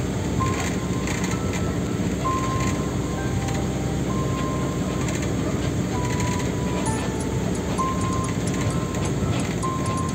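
Background music: a slow melody of single held high notes over a steady rumbling noise.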